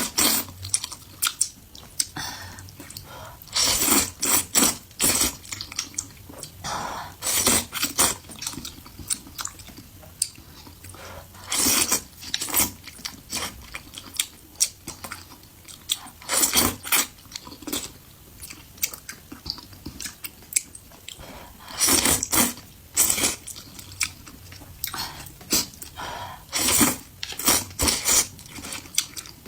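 A person chewing and eating mala-spiced rice noodles, with loud, sharp bursts of mouth noise in clusters every four to five seconds.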